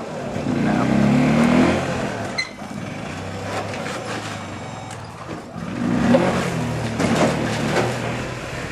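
Golf cart engine running and revving up in two surges as the cart drives over dirt, with a steadier run in between.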